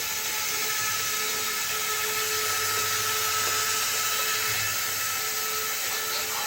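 Electric motor of a toy Disney Mark VII monorail, fitted with a Losi electronic speed control, running at high speed with a steady whine and hiss.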